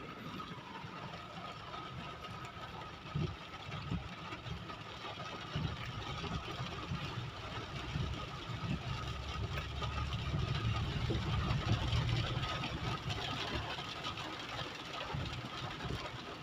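Motorcycle engine running while riding, a steady low rumble with road and wind noise, growing a little louder about ten seconds in.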